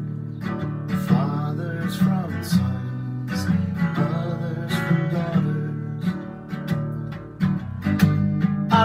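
Steel-string acoustic guitar strummed in a steady rhythm, with a man singing a slow melodic line over it.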